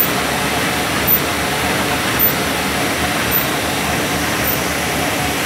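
1999 Muller Martini Presto gatherer-saddle stitcher running: a steady mechanical clatter with a louder beat repeating about once a second.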